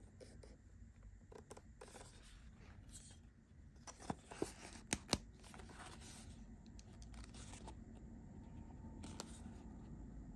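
Hands flexing and rubbing a stiff black leather knife sheath, with soft scraping and rustling. Four sharp clicks come close together about four to five seconds in.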